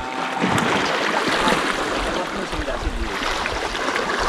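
Small sea waves washing and splashing over shoreline rocks: a steady rushing wash.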